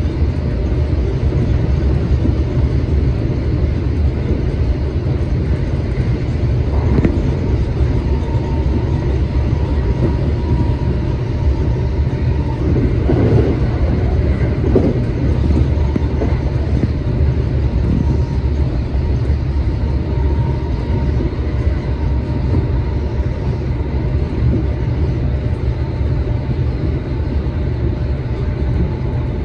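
Commuter electric train running, its steady low rumble heard from inside the car, with a faint steady whine from about eight seconds in to about twenty-one seconds in and a single knock about seven seconds in.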